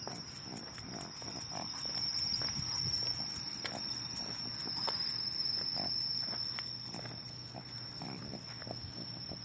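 A steady high-pitched insect chorus with a second, higher thin tone above it, with scattered faint ticks of footsteps on pavement.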